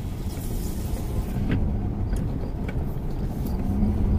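A car's engine and tyres rumbling steadily, heard from inside the cabin as it drives slowly, with a few faint ticks.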